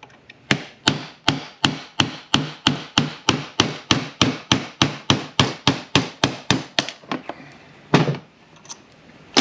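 Rapid, even hammer taps on the steel parts of a Ford M5R1/M5R2 manual transmission shift tower, about four a second for some six seconds. After a short pause comes one harder blow, and the tapping stops.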